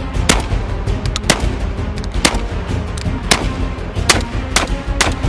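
Beretta A300 Ultima Patrol 12-gauge semi-auto shotgun firing a string of shots, about one a second at first and quickening near the end, over background music.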